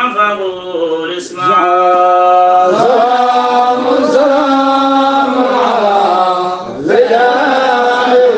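A chanted Arabic devotional qasida: a voice holds long, drawn-out notes, with two short breaks.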